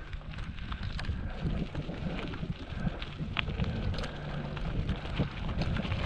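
Wind buffeting the microphone of a camera on a moving bicycle, a steady low rumble, with bicycle tyres crunching over a gravel track and many small clicks and rattles from loose stones and the bike.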